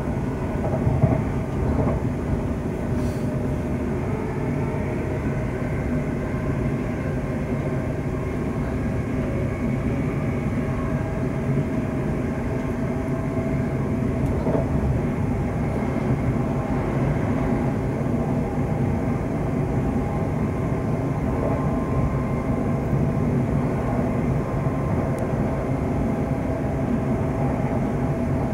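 Cabin noise inside a Siemens Desiro Class 350 electric multiple unit running at steady speed: a continuous rumble of wheels on rail with steady humming tones over it, as heard from a passenger seat.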